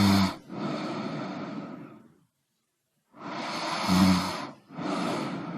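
Someone snoring in sleep. A loud pitched snore breaks off just after the start and is followed by a long breathy breath. After a pause of about a second comes another breath with a short pitched snore in its middle, then one more breath near the end.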